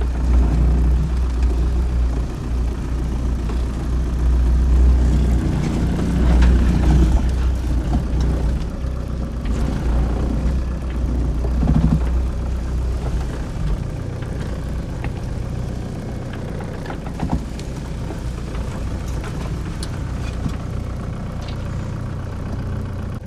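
An '86 Toyota pickup's engine running, with a heavy low rumble for roughly the first fourteen seconds that then settles to a quieter, steady run.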